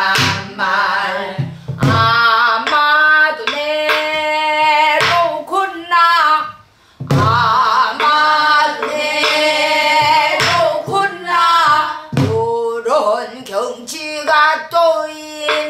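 A woman singing Korean folk song (Namdo minyo) in a strong voice with wide, wavering vibrato. Her phrases are marked by a few low drum strokes on a buk barrel drum.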